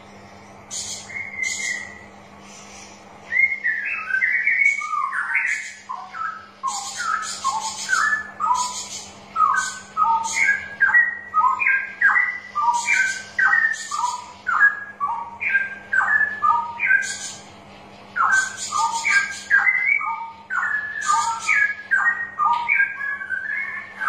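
Straw-headed bulbul (cucak rowo) singing a loud run of rich, bubbling whistled phrases that dip and rise. The song starts about three seconds in and pauses briefly near the end. Short, sharp high notes sound over it throughout, with a steady low hum beneath.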